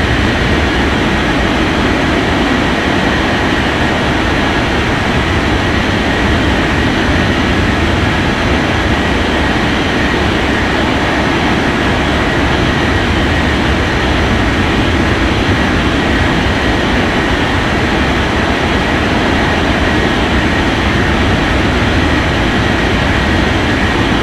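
Jet engines of a KLM cargo airliner running at takeoff power, a loud steady rush of engine noise with a faint high whine.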